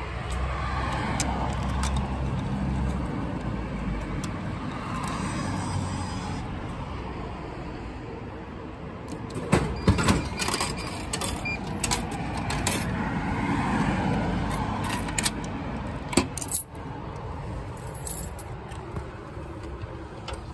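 Road traffic passing steadily, then a drink vending machine dispensing. About halfway through there is a cluster of clatters as the drink drops and coins of change jingle out. Later come a few knocks and clicks at the dispensing flap as the bottle is taken out.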